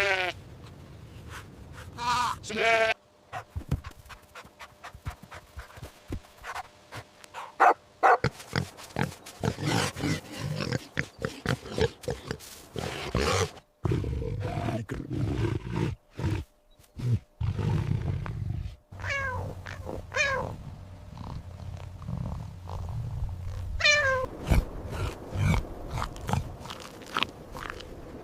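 A string of recorded animal calls. Short pitched calls falling in pitch come near the start, twice about 19 to 20 seconds in, and once near 24 seconds. Between them, from about 8 to 18 seconds in, come stretches of rough, noisy calls.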